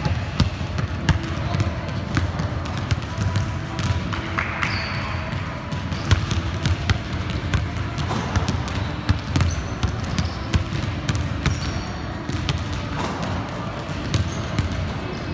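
Several basketballs being dribbled on a hardwood gym floor, their bounces overlapping in an uneven, continuous patter.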